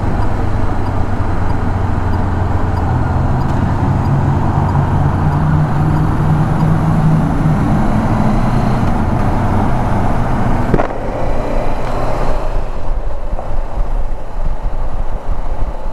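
Honda CB500X's parallel-twin engine under way with road and wind noise, its note rising for several seconds and then dropping back. A sharp click comes about eleven seconds in, after which the sound is quieter.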